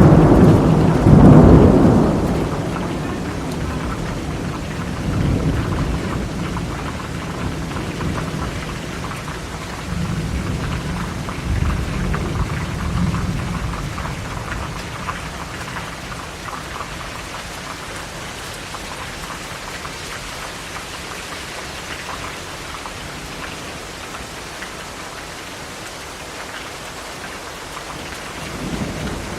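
Steady heavy rain with thunder: a loud rumble of thunder dies away in the first few seconds, fainter rolls follow twice, then rain falls on alone.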